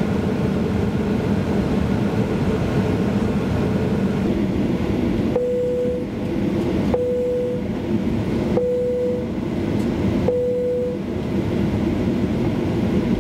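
Steady cabin rumble of a Boeing 737-800 taxiing, its CFM56 engines at idle, heard from a window seat. About five seconds in, four short, even beeps sound about a second and a half apart.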